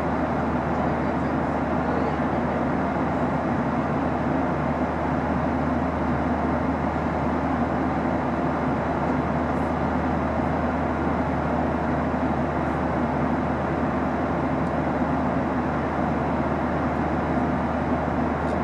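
Steady cabin noise of a Boeing 737-800 in flight, heard inside the cabin at a window seat: an even drone of the CFM56-7B turbofans and air rushing past the fuselage, with a low hum underneath.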